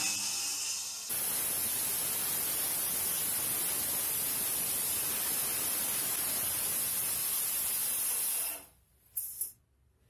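Electric circular saw starting up, then its blade cutting across a wooden board as it is pushed along a crosscut jig. The dense, steady cutting noise stops abruptly about eight and a half seconds in.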